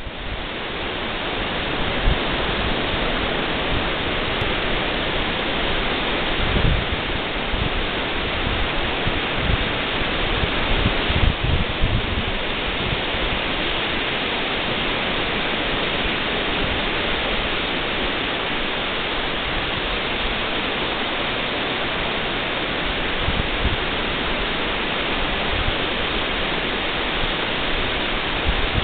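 Steady rushing noise of surf breaking on a sandy beach, with wind buffeting the microphone in low, uneven gusts.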